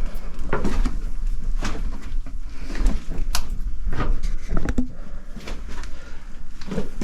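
Footsteps going down steep stairs: irregular knocks and thuds, about one a second, over a steady low rumble.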